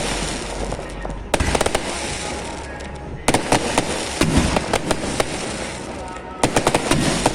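Aerial fireworks bursting in three volleys of rapid sharp bangs, about a second and a half in, around three seconds in and near the end, with a steady crackling hiss between the volleys.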